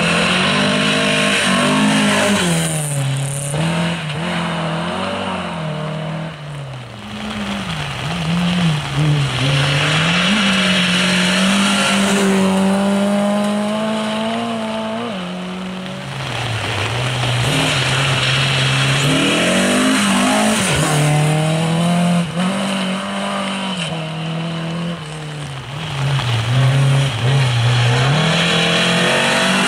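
Rally car engines at full throttle on a wet gravel stage: the pitch climbs through each gear, with brief lifts and drops at the gear changes. The cars pass one after another, over a steady hiss of wet gravel and spray under the tyres.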